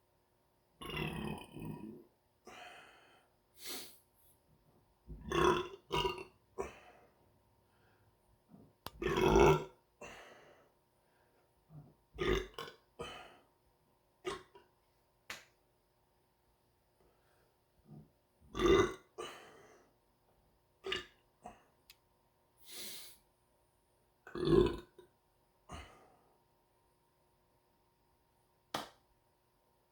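A person belching again and again after chugging two liters of carbonated soda, the swallowed gas coming up as a series of burps. About six of them are loud, the loudest about nine seconds in, with shorter, quieter ones in between.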